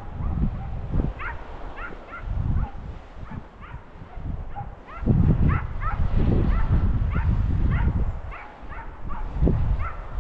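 Hunting hounds yelping with many quick, short high yips, over a low rumbling noise that grows louder from about five seconds in.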